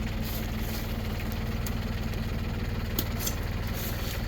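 New Holland compact tractor's diesel engine running steadily at low speed, with one sharp click about three seconds in.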